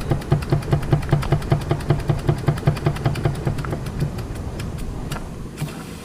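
Meccano toy steam engine running, its cylinder chuffing in an even beat of about five or six strokes a second. Near the end the beats weaken and die away.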